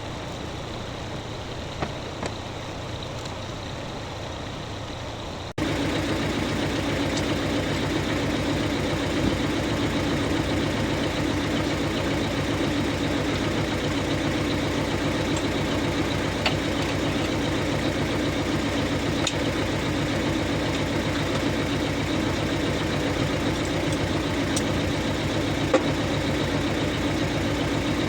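Tractor engine running steadily; about five seconds in the sound jumps abruptly to a louder, fuller running that then holds steady.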